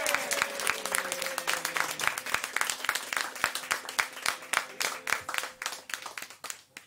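Audience applauding, the clapping thinning and fading away near the end. A held note from the band dies away under it during the first few seconds.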